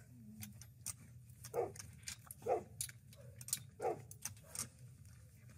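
A dog gives three short barks, the loudest sounds here, about a second apart. Sharp clicks and light rattles come from leash clips and the chain-link fence gate as the dog is leashed through the fence.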